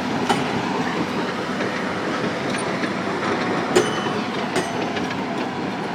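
Hydraulic breaker hammer on a Cat 320C excavator pounding in a rapid, steady, rattling rhythm, with a few sharper metallic clicks, the loudest about four seconds in.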